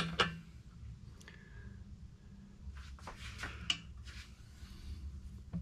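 Light metal clicks and taps as a fan hub is worked onto a generator shaft over its Woodruff key, with a cluster of clicks about three seconds in. A steady low hum runs underneath.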